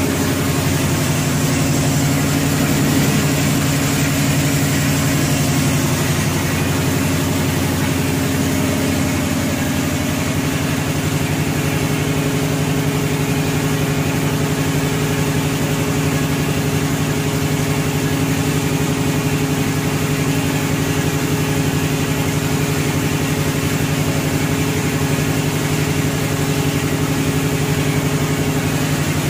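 Garlic peeling machine running steadily: a constant motor hum under a dense, even hiss.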